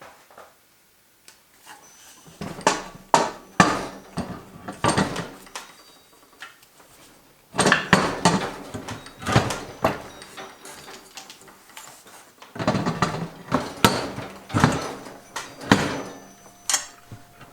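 Irregular knocks, clanks and scrapes of metal motorcycle parts being handled and fitted by hand, in several bunches with short pauses between them.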